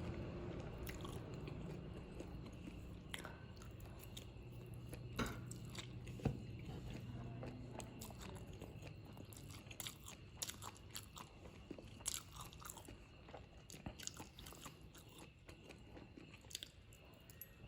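Close-up eating of spicy Korean-style fried noodles: chewing with many small mouth clicks and a few sharper taps, over a faint hum that slowly dies away.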